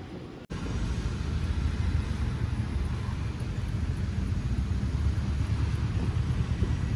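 Outdoor city street ambience with a steady low rumble, starting after a sudden cut about half a second in; before the cut the ambience is quieter.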